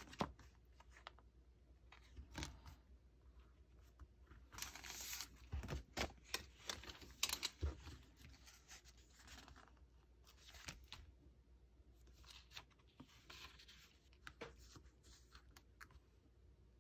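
Stickers being peeled off their backing sheet with metal tweezers and pressed onto a paper journal page: soft peeling and paper-rustling sounds with small clicks and taps, busiest about four to eight seconds in.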